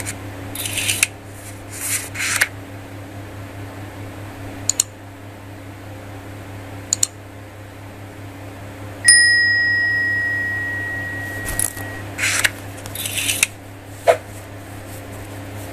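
Subscribe-animation sound effects over a low steady hum: a few whooshes, a couple of mouse clicks, and a bell ding about nine seconds in that rings for about three seconds.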